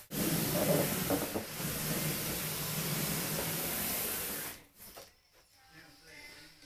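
A large cardboard toy box being slid across carpet, a steady rubbing scrape that starts abruptly and stops after about four and a half seconds.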